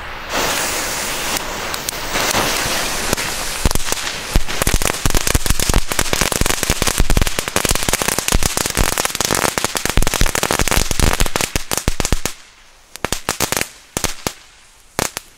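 Three crackling strings (Crackling-Lunden, red paper-wrapped crackling cords) burning together on the ground. A hiss at first turns into about nine seconds of dense, rapid crackling pops, which thin to scattered pops near the end.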